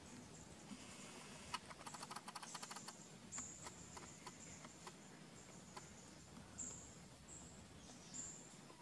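Quiet forest ambience with several short, high-pitched chirps and a brief rapid run of clicks about two seconds in.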